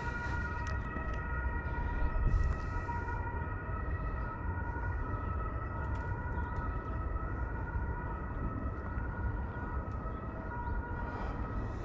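DJI Mini drone's propellers humming steadily, a chord of several fixed whining tones, over a low wind rumble.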